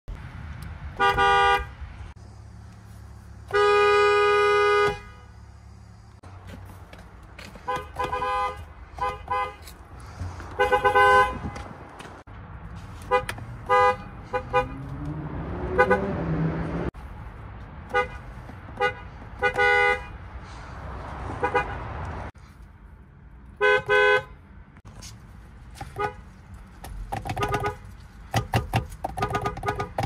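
Lexus car horn sounding a two-note chord, honked again and again: short toots and quick taps, with one long blast of over a second about four seconds in.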